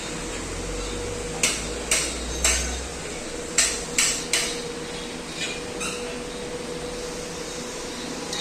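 A series of sharp knocks: three about half a second apart, then three more, then two fainter ones, over a steady hum.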